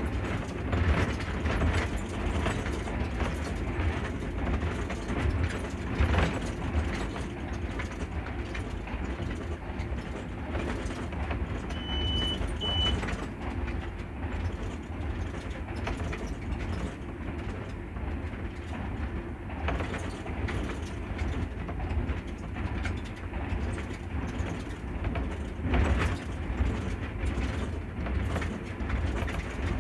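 Diesel engine of a moving ZCU-20 diesel-electric locomotive running steadily with a low rumble, heard from inside the cab, with a few knocks from the running gear on the track. Two short high beeps about twelve seconds in.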